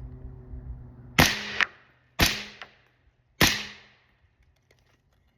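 Three suppressed 5.56 rifle shots through a Yankee Hill Machine R45 suppressor, about a second apart, each sharp crack trailing off in a short echo.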